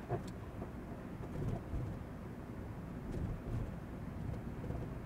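Steady low road and engine rumble inside the cabin of a Volkswagen Touareg towing a caravan, with a few faint ticks.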